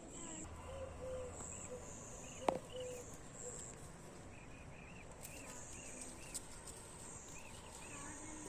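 Outdoor insect chorus: repeated high, thin trills with small chirps recurring over them. A single sharp click about two and a half seconds in.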